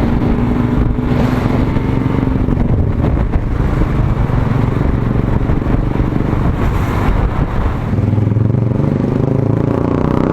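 Motorcycle engine running on the move, a steady hum under rushing wind and road noise, with the engine note climbing about eight seconds in as it speeds up.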